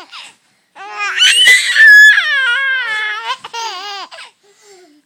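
A young child laughing in long, high-pitched squeals while hiccuping, the laughter broken by sudden sharp catches. A short squeal comes first, then a long one about a second in and another near the end.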